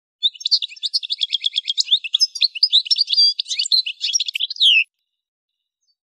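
Algerian goldfinch (Carduelis carduelis parva) singing one fast, dense phrase of twittering and buzzy notes for about four and a half seconds, ending on a downward-sliding note.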